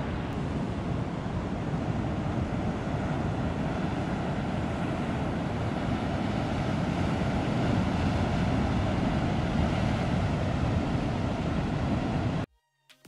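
Steady rushing of sea and wind on the body-worn camera's microphone, heaviest in the low end. It cuts off suddenly near the end.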